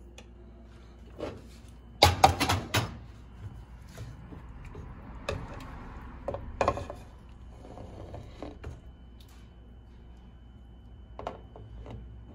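Metal serving spoon knocking and scraping against a metal pan and a plate while food is dished out, with a quick cluster of clinks about two seconds in and scattered single knocks after.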